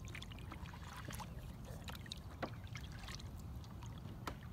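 Small water sounds around a plastic fishing kayak: scattered light ticks, drips and splashes against the hull over a low steady rumble.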